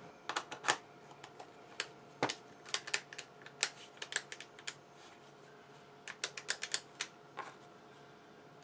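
Irregular sharp clicks and taps of small hard parts, in quick clusters: a hex bit and the spring-loaded collar of a Skil 4-volt cordless screwdriver's bit holder being worked by hand.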